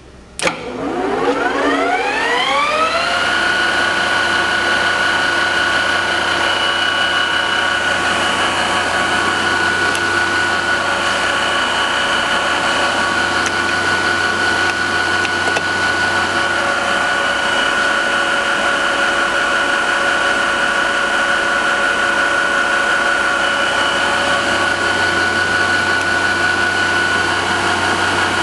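Hwacheon 16 x 40 metal lathe switched on with a clack, its spindle and geared headstock whining upward in pitch for about three seconds as they spin up, then running steadily at speed with a constant gear whine.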